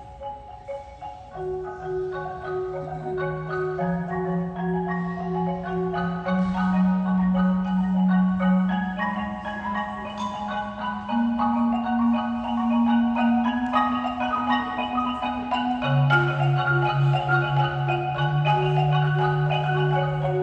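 Marimba played by four players at once: a flowing pattern of repeated notes in the middle and upper range over long held bass notes. The bass climbs step by step, then drops back low about 16 seconds in.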